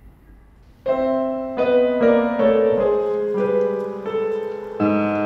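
Background piano music: a gentle melody of single held notes that starts about a second in.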